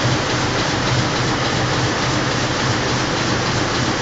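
A flatbed machine with a moving head working over printed sheets runs steadily: an even rushing noise with a low hum underneath.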